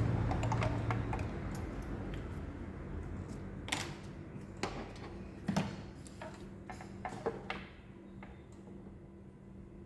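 Scattered sharp clicks and light knocks of hand tools and metal engine parts being handled during disassembly, over a steady low hum. A louder low hum fades away in the first second.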